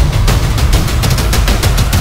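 Background music with fast, dense percussion over heavy bass.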